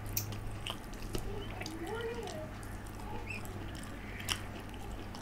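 Eating by hand: scattered soft wet clicks of chewing and of fingers squeezing rice and curry on a steel plate, over a low steady hum.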